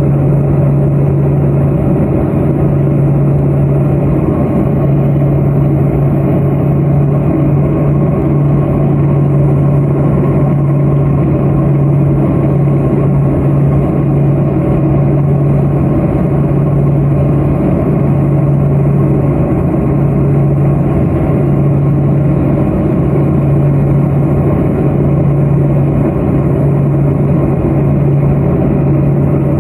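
Twin turboprop engines and propellers of a Let L-410 Turbolet running steadily, a loud, even drone with a constant low hum.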